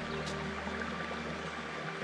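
Background music of slow, held chords over a low drone.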